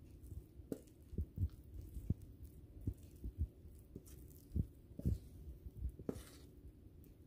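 Wooden spoon scraping thick banana bread batter out of a mixing bowl into a glass loaf pan: irregular dull thumps and soft plops, with a longer scrape about six seconds in.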